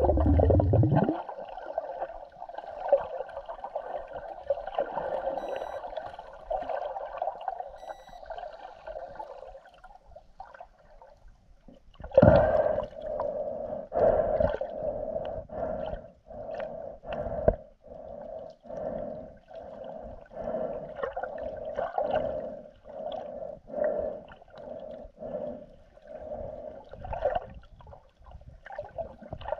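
Muffled underwater sound picked up by a camera in a waterproof housing: water moving around the case with a dull hum, a heavy low thump at the start, and from about twelve seconds in a run of irregular knocks and bumps as the housing is handled.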